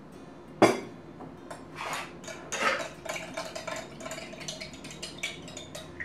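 Metal teaspoon stirring milk in a glass mason jar, clinking and scraping against the glass. There is one sharp, loud clink a little over half a second in, then a string of lighter clinks.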